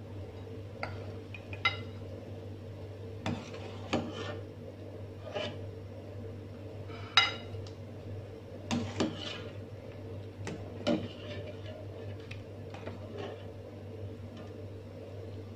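Metal ladle clinking and scraping against an aluminium cooking pot and a ceramic plate while scooping and stirring boiling rice porridge: a dozen or so scattered knocks, the loudest about seven seconds in, over a steady low hum.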